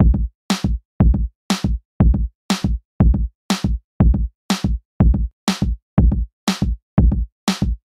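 Background music: a drum-machine beat alone, kick and snare alternating about twice a second, with nothing between the hits.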